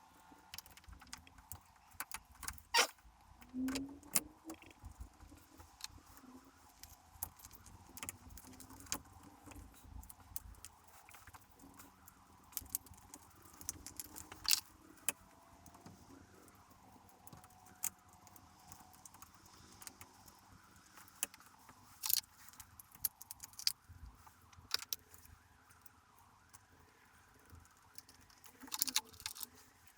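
Hand tools clinking and clicking against metal bolts and nuts as they are tightened on a motorcycle, in scattered sharp clicks with pauses between.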